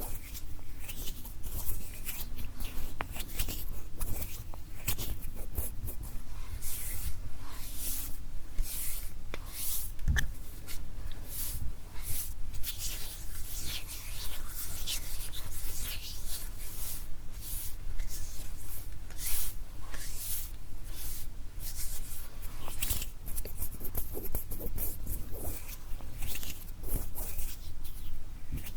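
Bare hands making close-miked ASMR hand sounds: skin rubbing and brushing in a continuous run of quick, irregular, hissing swishes.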